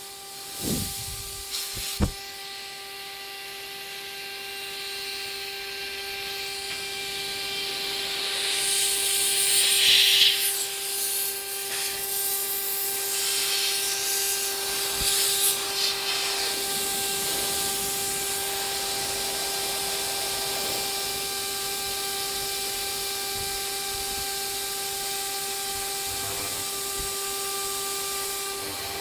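CNC router spindle running with a steady whine while its end mill cuts a groove in 3 mm Dibond aluminium composite panel, over a hiss from the cut; the hiss grows brighter around ten seconds in.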